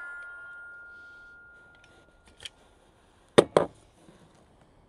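A metallic ring fading away after a 9mm shot fired just before, then a light click and two sharp metallic clacks in quick succession about three and a half seconds in as the homemade 9mm is handled.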